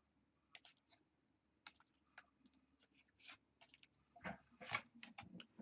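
Soft scattered clicks and rustles of a box of trading cards and its packs being opened and handled, getting busier and louder near the end.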